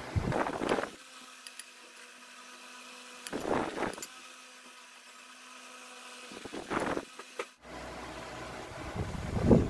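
Avocado chunks being dropped into a glass blender jar: four short bursts of noise a few seconds apart, over a faint steady hum.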